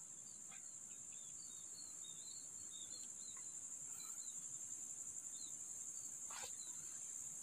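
Faint, steady high-pitched chorus of insects, with faint short chirps scattered through it.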